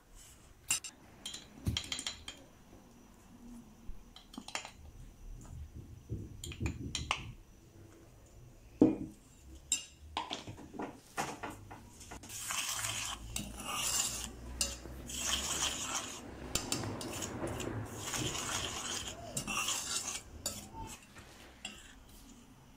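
Metal spoon clicking and knocking against an enamel bowl, with one sharp knock a little before halfway, then a longer stretch of scraping and stirring as dry cocoa powder and sugar are mixed in the bowl.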